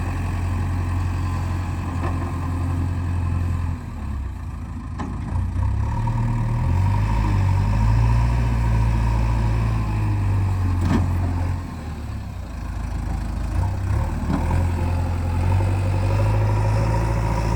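Heavy diesel machinery running, the engine note rising under load and dropping back, with dips about four seconds in and again about twelve seconds in, and a few faint knocks.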